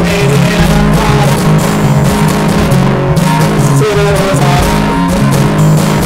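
Guitar-led music playing steadily, with sustained low notes.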